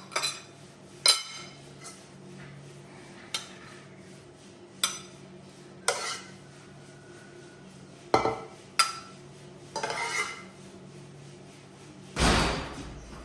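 Dishes and cutlery clinking and knocking as they are handled, one sharp clink every second or two, with a louder thump near the end. A faint steady hum sits underneath.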